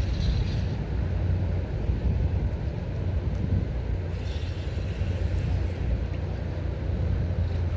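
Steady low rumble of outdoor noise: the river current and wind on the microphone, with no distinct event.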